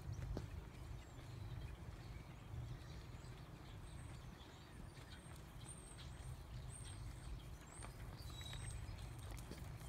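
Hoofbeats of a ridden horse moving over a soft dirt arena, faint clip-clops under a steady low rumble.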